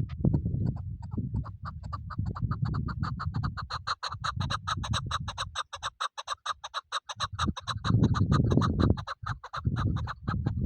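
Chukar partridge calling: a long, rapid run of sharp clucking notes, about eight a second, over an uneven low rumble.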